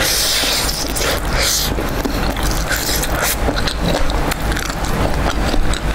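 Close-miked eating sounds: wet chewing, crunching and lip smacks while eating kimchi, a dense run of small clicks and crackles over a steady low hum.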